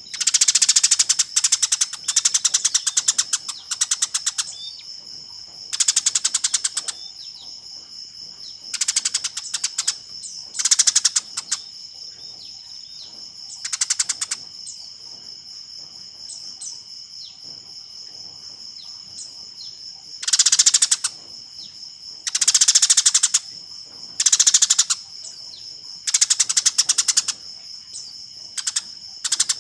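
Eurasian tree sparrows giving their excited fighting chatter: loud bouts of rapid, harsh chirps lasting one to two seconds each, repeated with short pauses. A steady high-pitched drone runs underneath.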